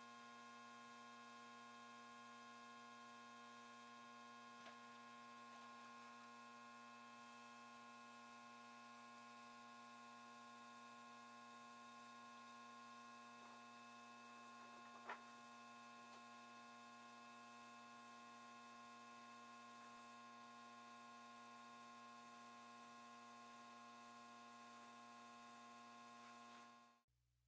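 Near silence with a faint, steady electrical hum of several fixed tones and a faint click about fifteen seconds in; the hum cuts off just before the end.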